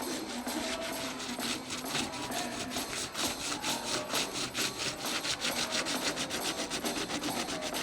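Quick, even back-and-forth scraping strokes of a hand tool abrading the surface of a plastic water tank during its repair, several strokes a second.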